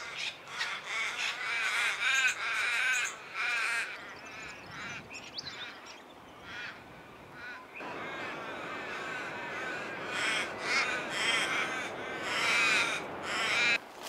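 A crow calling: series of short harsh caws, one bout in the first few seconds and another from about ten seconds in. A steady hiss rises from about eight seconds in.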